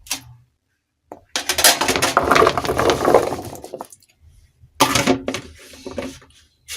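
Chopped potato pieces being tipped into a microwave bowl: a rattling clatter of pieces landing for about two and a half seconds, then a shorter clatter and a few knocks near the end.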